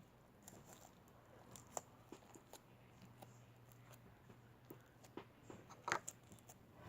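Faint squishes and small scattered clicks of a clear slime with little glass balls in it being handled, over near silence with a low steady hum.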